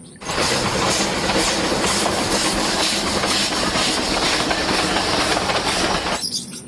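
Sound of a train running: a steady, loud rushing noise that starts abruptly and cuts off about six seconds in.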